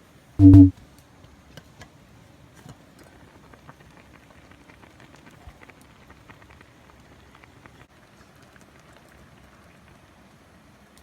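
Wood fire crackling: a faint hiss with scattered small pops, after a short loud low hum about half a second in.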